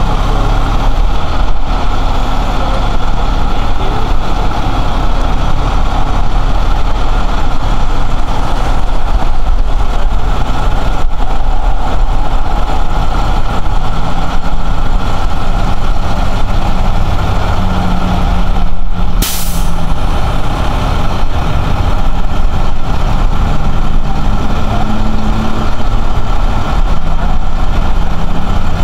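Bucket truck's engine idling steadily, kept running to drive the raised aerial lift. A short hiss cuts in once about two-thirds of the way through.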